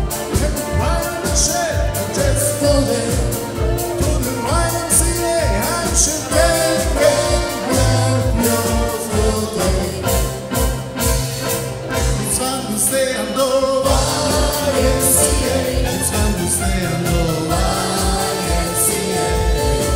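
Upbeat dance song with singing over a steady beat of about two strokes a second; the beat drops out briefly a little past the middle, then comes back.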